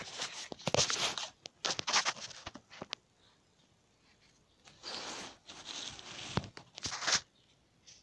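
Irregular rustling and crackling of leaves and stems, in clusters of bursts over the first three seconds and again from about five to seven seconds, with a lull between.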